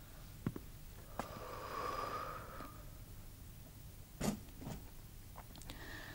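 Quiet room with a few faint knocks, the sharpest about four seconds in, and a soft breathy rustle lasting about a second and a half, starting about a second in.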